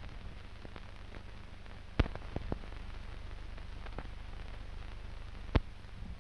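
Surface noise of an old optical film soundtrack: a steady low hum and faint crackle, broken by two sharp pops about two seconds in and near the end, with a few smaller clicks just after the first.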